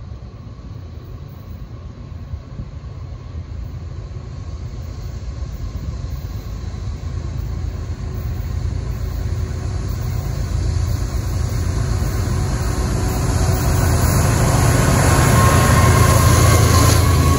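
Three BNSF GE Evolution-series diesel locomotives (ET44C4, ES44AC and ES44C4) leading a fast intermodal train: a low diesel rumble with rising wheel-on-rail noise, growing steadily louder as the locomotives approach and reach the microphone near the end.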